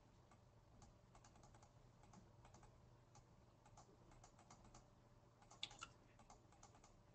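Faint computer keyboard typing: scattered light keystrokes, with a quick run of a few slightly louder ones about five and a half seconds in, over a faint low hum.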